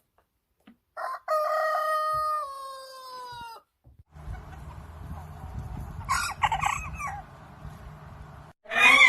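A rooster crowing: one long crow that starts about a second in, holds its pitch and drops at the end. Softer clucking calls follow over a low rumbling background, and another loud call begins just before the end.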